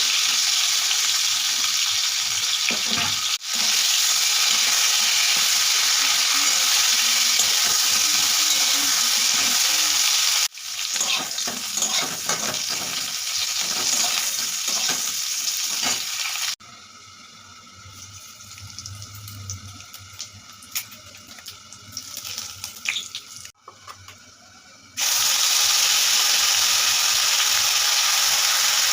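Food sizzling as it fries in hot oil in a pan, a steady loud hiss broken by several abrupt cuts. In a quieter stretch past the middle the sizzle drops away, leaving light scattered knocks, before the hiss returns near the end.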